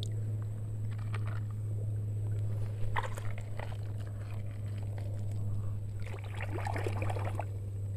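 Faint scraping and light clatter of small plastic toy vehicles being dug out of sand by hand, a few short scrapes about three seconds in and again near the end, over a steady low hum.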